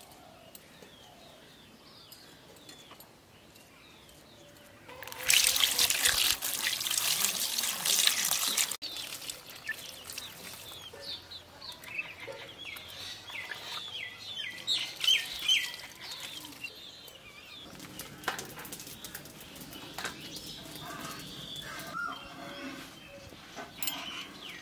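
Water pouring and splashing for a few seconds, cutting off suddenly, as fish are washed at an outdoor tub; later a run of short chirping bird calls.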